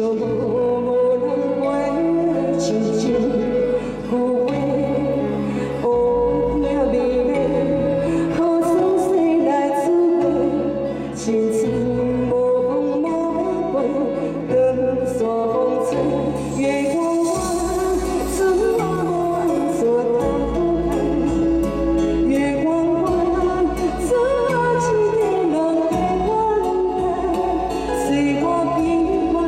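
A woman singing a song into a microphone over loud backing music with a steady bass and beat, amplified through a stage truck's sound system.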